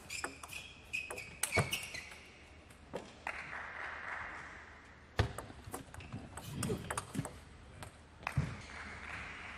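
Table tennis ball knocking against bats and the table in a rally, in sharp single clicks about half a second to a second apart, then a few scattered knocks. A high squeak runs through the first two seconds.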